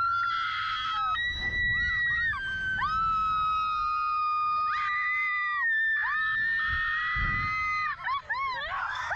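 Two young women screaming on a Slingshot reverse-bungee ride: long, high held screams, often two voices at once, breaking into short, quick shrieks near the end. Wind rumbles on the microphone underneath.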